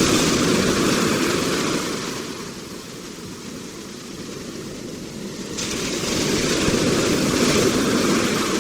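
Ocean waves washing on the shore: one wave's rush dies down over the first couple of seconds, then the next builds and crashes in from about halfway through.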